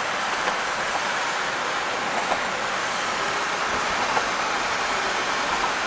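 Steady tyre and wind noise of a car driving at speed, a continuous even rush with no change.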